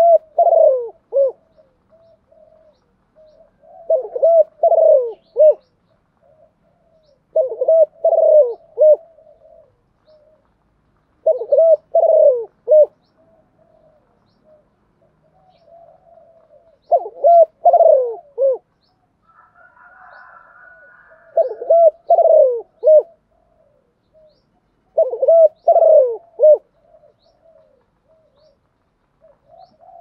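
A spotted dove cooing its advertising call: about seven phrases, one every three to four seconds, each a cluster of a few falling coos, with soft low notes between phrases. It is the call a caged decoy dove gives to lure wild doves in.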